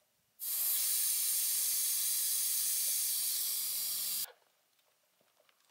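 Air hissing out of a motorcycle tyre's valve as the tyre is deflated to be taken off the rim. It is a loud, steady hiss that starts abruptly, lasts about four seconds and cuts off suddenly.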